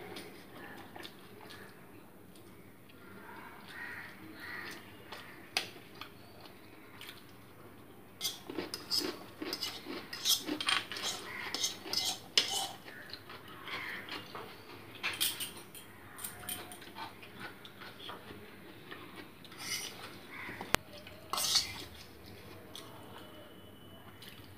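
A metal spoon clinking and scraping against a plate as noodles are scooped up, a run of sharp clicks that is busiest through the middle of the stretch.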